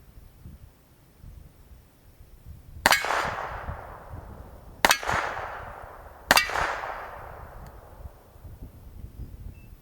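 Three gunshots, the first about three seconds in and the next two about two seconds and a second and a half apart, each followed by a long echo that fades out.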